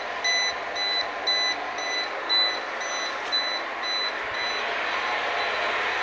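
Electronic buzzer on a steam boiler's control panel beeping about twice a second, the alarm signalling that the boiler water has reached the overflow level. The beeping stops about four and a half seconds in, leaving a steady rushing noise.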